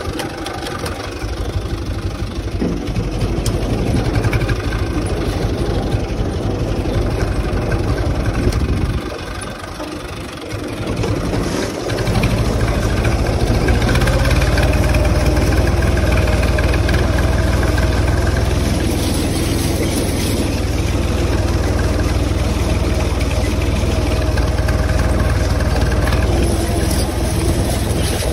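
UTB 445 tractor's diesel engine running, dipping in loudness about a third of the way through, then running louder and steadier.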